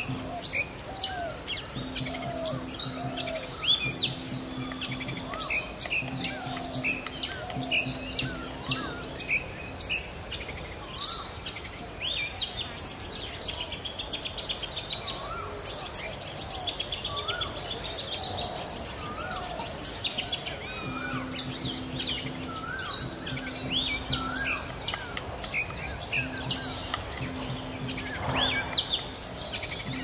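Several birds chirping and calling over one another in short, varied notes, with a fast rattling run of repeated notes through the middle. A steady high-pitched hiss runs underneath.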